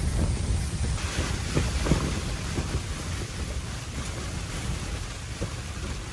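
Blizzard wind gusting, with a low rumble of wind buffeting the microphone; it eases slightly toward the end.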